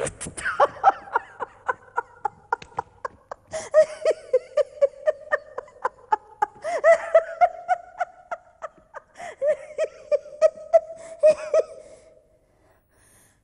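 A woman laughing in a long run of rapid, even "ha-ha-ha" pulses at a steady pitch, dying away about twelve seconds in.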